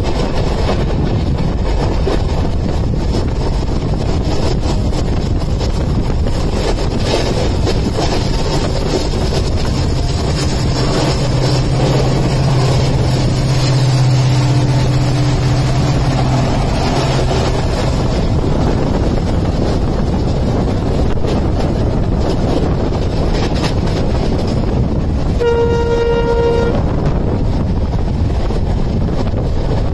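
Steady running rumble of a moving passenger train heard from an open coach door. A diesel locomotive passes on the parallel track around the middle, adding a low engine hum. A train horn sounds one short blast of about a second near the end.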